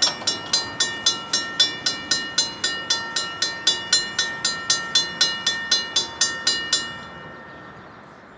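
Safetran mechanical railroad crossing bell ringing its warning, its striker hitting the gong about four times a second. About seven seconds in the striking stops and the last stroke rings out and fades.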